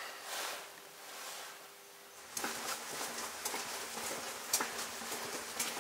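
A steady low buzz comes in about two seconds in, with irregular footsteps and small knocks on concrete over it.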